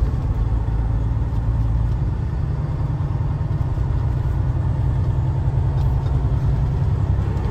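Steady low rumble of engine and road noise inside a loaded semi-truck's cab while cruising on the highway.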